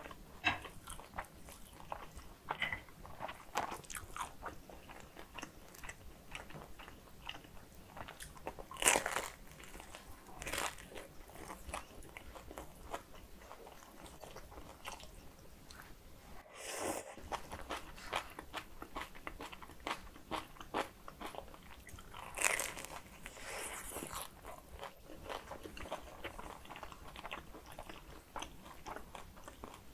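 Chewing and biting: a person eating kimchi bibim noodles and a galbi dumpling, with crunchy bites of kimchi and many small wet mouth clicks. Two louder crunchy bites stand out, about 9 and 22 seconds in.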